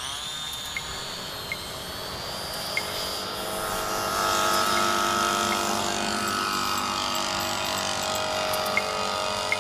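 Propeller motor of a radio-controlled pterosaur model aircraft running up for takeoff: a steady whine that grows louder over the first few seconds, then holds.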